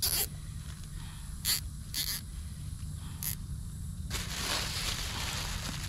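Plastic zip tie being threaded through its lock and pulled, a few short scratchy clicks and then a continuous rasping zip from about four seconds in as the tail is drawn through the ratchet.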